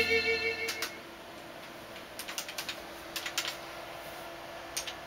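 Computer keyboard being typed on: light clicks in short irregular runs with pauses between them.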